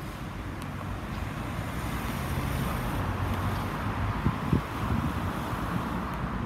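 Road traffic passing: a steady rush that swells through the middle, with two short low thumps about four and a half seconds in.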